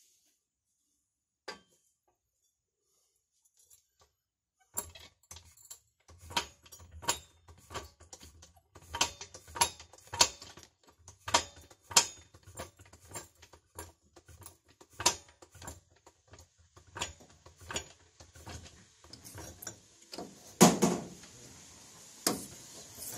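Irregular metallic clicks and clanks of hand tools and jacking gear being worked under a truck, several a second, starting about five seconds in over a low steady hum, with one heavier thump a little before the end.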